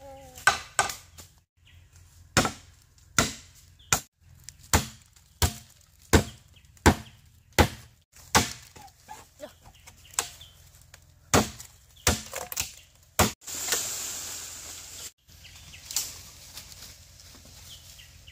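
A blade chopping with sharp, hard strikes, about four every three seconds for several seconds, then more irregularly. A rushing noise lasts over a second near the end.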